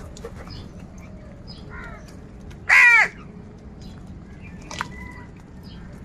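House crows calling while feeding: one loud, harsh caw about three seconds in, with fainter caws about a second before and two seconds after it. Scattered small clicks run through the calls.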